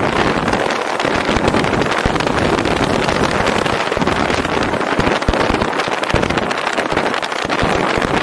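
Steady rush of road and wind noise from a car driving at speed, with uneven low wind buffeting on the microphone.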